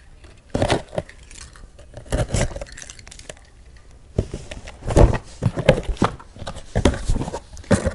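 Small cardboard accessory box being handled and opened by hand: an irregular string of short knocks, scrapes and rattles as the flaps are pulled apart and the contents (charger, mirror, keys) shift inside.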